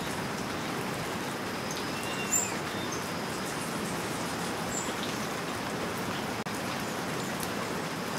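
Steady hiss of outdoor forest ambience, with a few brief high bird chirps, one a little over two seconds in and another near five seconds.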